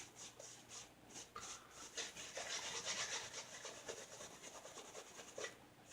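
Faint, quick scratchy strokes against the face during a wet shave, a few a second, running together more thickly in the middle.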